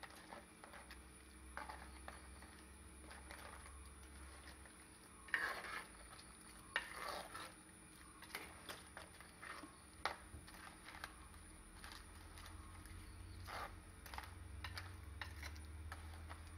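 Steel ladle stirring crab curry in an earthenware pot, with scattered scrapes and knocks of the ladle against the pot. The loudest come in a cluster about a third of the way in.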